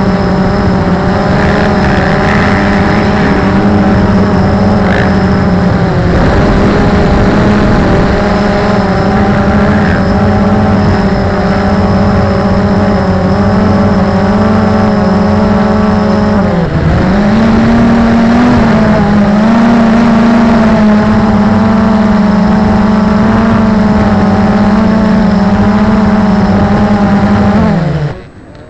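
Battery-powered drone's electric motors and propellers whining steadily, heard loud through its own onboard camera. The pitch dips and recovers briefly about halfway through, and near the end the motors wind down and stop as it comes down to the ground.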